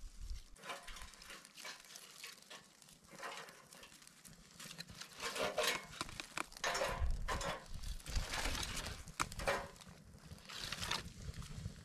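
Dry twigs being snapped and crunched by hand and stuffed into a small metal camp stove: irregular crackling and rustling, with a few sharp snaps near the end.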